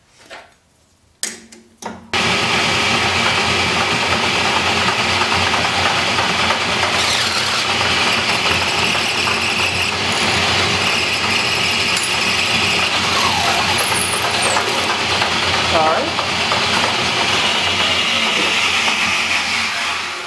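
An electric power tool switches on about two seconds in and runs steadily, a hiss over its motor hum, then winds down at the end.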